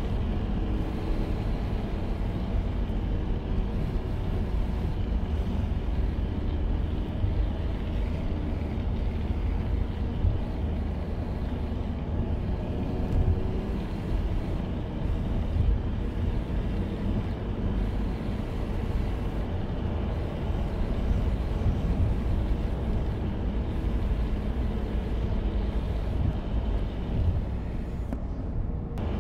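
Car driving on a dirt track, heard from inside the cabin: a steady low rumble of engine and tyres, with a faint engine note drifting up and down.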